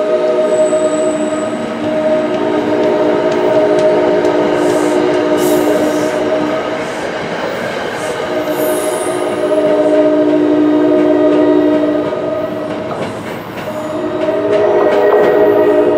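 NJ Transit commuter train's horn sounding a multi-note chord in long blasts, breaking off briefly twice. Under it is the rumble and clatter of the passenger cars rolling away along the platform.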